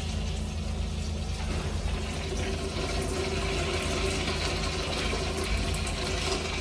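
Toilet flushing, water rushing and filling, picking up about a second and a half in, over a steady low hum.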